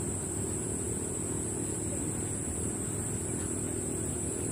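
Steady high-pitched insect drone from cicadas or crickets, held at one pitch without a break, over a low steady hum.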